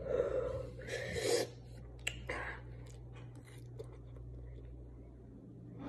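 A person blowing out hard through pursed lips in two strong huffs, then a shorter one, to cool a mouth burning from very spicy noodles. Faint chewing and mouth clicks follow.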